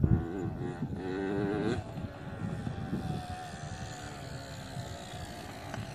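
Yamaha PW80 two-stroke single-cylinder dirt bike engine running as the bike is ridden. Its pitch wavers with the throttle for the first couple of seconds, then drops back to a slowly falling tone.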